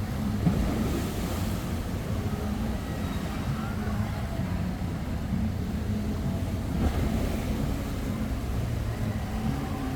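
Boat engine running with a steady low hum, mixed with water rushing and wind buffeting the microphone.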